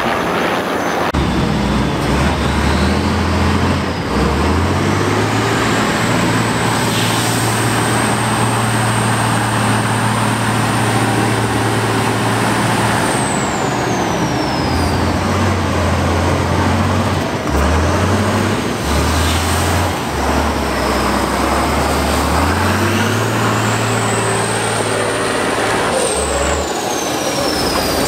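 A six-wheeled trial truck's engine revving hard under load as the truck climbs and crawls over a steep muddy slope. Its deep note steps up and down every few seconds, with a high whine rising and falling above it.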